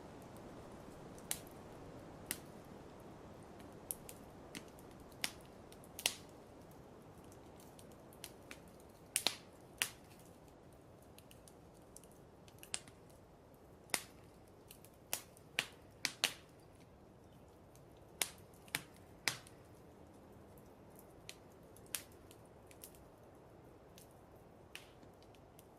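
Wood fire crackling in a fireplace: irregular sharp pops and snaps, some in quick clusters, over a soft steady hiss.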